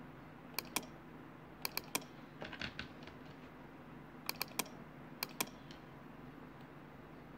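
Sharp clicks from computer controls, about a dozen in quick groups of two or three over the first five and a half seconds, over a low steady hum.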